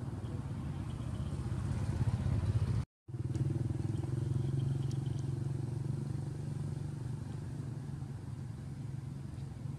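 Steady low hum of a running motor-vehicle engine, cutting out for a split second about three seconds in.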